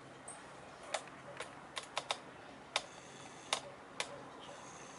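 Irregular sharp clicks, about eight of them spread over a few seconds, over a faint steady hiss, with a brief faint high tone near the end.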